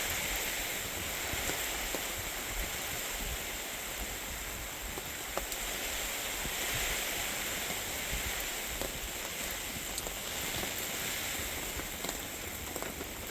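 Steady rain falling, with scattered individual drops ticking through it and wind rumbling low on the microphone.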